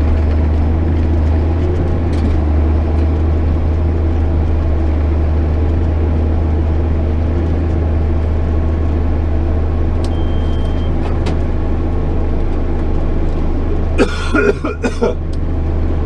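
JCB Fastrac 8250 tractor's diesel engine running steadily under ploughing load, heard from inside the cab as a constant low drone. Near the end comes a brief burst of coughing.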